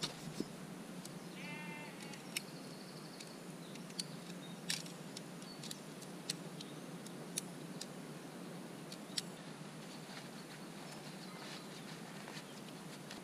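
Sharp clicks and light knocks of segmented metal tent pole sections being pulled apart and folded, about a dozen scattered through, over a steady background hiss. About a second and a half in there is a short pitched animal call.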